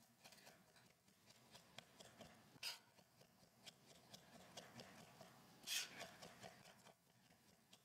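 Faint taps and knocks of a chef's knife mincing garlic on a wooden cutting board, with two louder strokes about three seconds apart.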